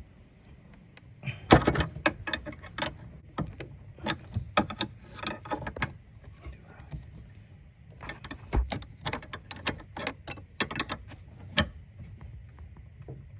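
Hand tools and metal parts clicking, knocking and clanking in irregular clusters, with the loudest knock about a second and a half in.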